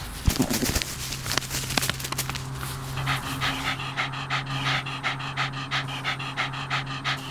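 Jack Russell terrier shaking a freshly killed rat in the grass, with rustling and scuffling, then panting rapidly from about three seconds in, several quick breaths a second, out of breath from the kill.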